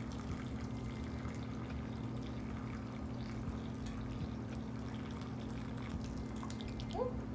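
Hot water poured from a stainless steel kettle into a plastic tub of crushed lily petals, a steady pouring trickle over a constant low hum.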